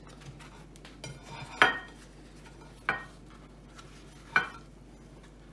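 Three sharp clinks of a ceramic plate knocked against the tabletop, about a second and a half apart, as a filled flatbread wrap is rolled on it. A faint rustle of the wrap comes just before the first clink.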